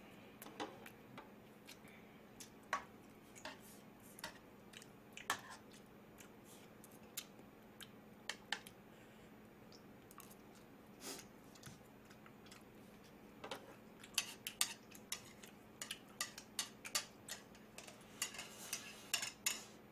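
A metal fork clinking and scraping against a plate and a pot of ramyun noodles during eating, with small mouth sounds of eating. The clicks are sparse at first and come thick and fast over the last six seconds.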